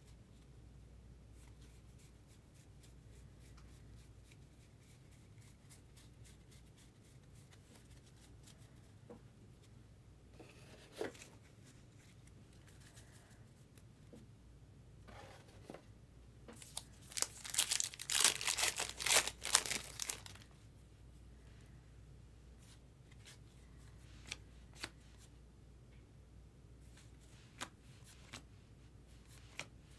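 A paper trading-card pack wrapper torn open and crinkled for about three seconds past the middle, after a short rustle about a third of the way in. Light ticks of cards being handled come and go around it.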